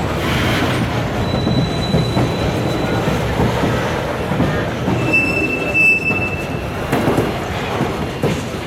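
Railcars rolling past, steel wheels running over the rail with a steady rumble and scattered knocks, and two brief high wheel squeals, one about a second in and one around five seconds in.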